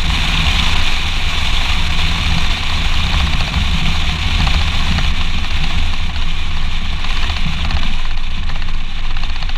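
Audi A4 B6 driving on asphalt, heard from a camera on the front wing beside the front wheel: steady tyre and road noise with wind rumble on the microphone.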